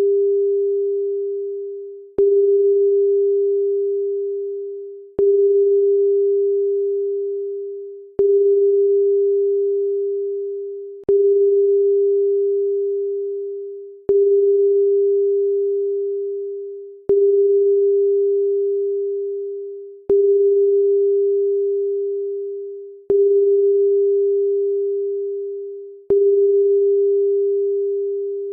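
Electronic pure tone at one steady, mid-range pitch, restarting with a click about every three seconds and fading away before each restart, nine times in a row.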